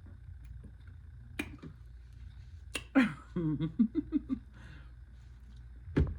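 Eating and drinking mouth sounds: a few sharp smacking clicks, then a falling vocal sound followed by a quick run of about six short voiced sounds.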